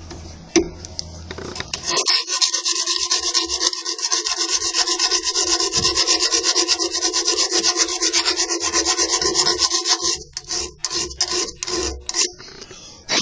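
Fine-grit hand file rasping back and forth across the cut end of a chrome saber tube in fast, even strokes. The filing starts about two seconds in and stops about ten seconds in, followed by a few scattered scrapes and taps.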